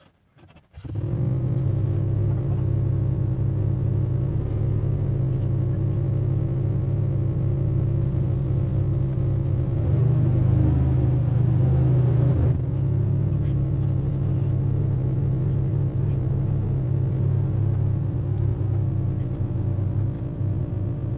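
Yamaha Rhino side-by-side's engine running with a steady low rumble, starting abruptly about a second in and growing louder for a couple of seconds around the middle.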